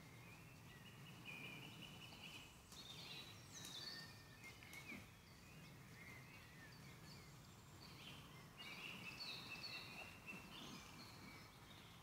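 Faint woodland birdsong: several birds singing in overlapping whistled phrases and trills, over a low steady background hiss.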